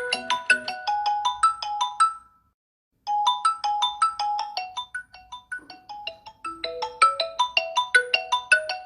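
Marimba-style phone ringtone: a quick melody of short, bell-like struck notes. It breaks off a couple of seconds in and starts again about a second later.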